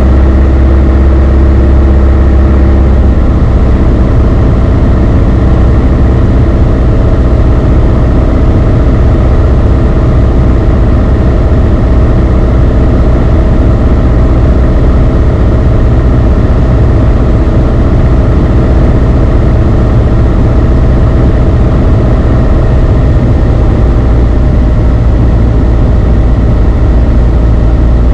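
The four-cylinder Lycoming O-360 engine and propeller of a Beechcraft Sundowner 180 running steadily in flight, heard as a loud drone inside the cabin. Its note shifts slightly about three seconds in.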